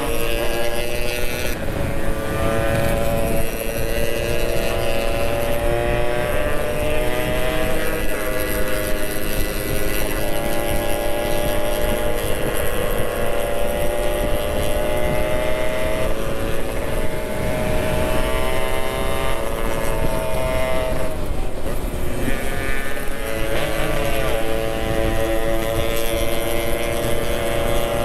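Yamaha RX-King's two-stroke single engine running at road speed under the rider, its pitch rising with throttle and dropping several times as the throttle is eased or gears are changed. Wind rushes over the microphone throughout.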